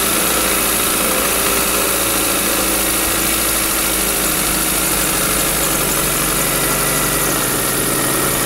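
2000 Chevy Metro four-cylinder engine idling with a steady knock. Two cylinders have lost compression, and the owner suspects rod bearings worn out on cylinders 2 and 3 after running low on oil, with the rings and cylinder walls wiped out.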